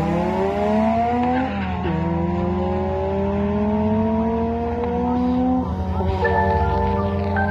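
Honda K20A2 four-cylinder engine accelerating hard through the gears: the pitch climbs, drops sharply at a gear change about one and a half seconds in, then climbs again for about four seconds. Music takes over near the end.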